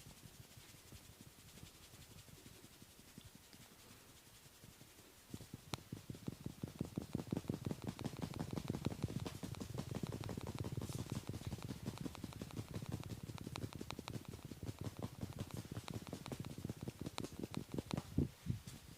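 Percussive massage strokes on the body: a fast, even run of several strikes a second. It starts about five seconds in after faint rubbing, grows louder through the middle and stops just before the end.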